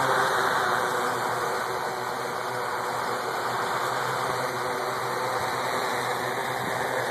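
Turbo Ace Matrix quadcopter's electric motors and propellers buzzing steadily as it hovers low over the ground.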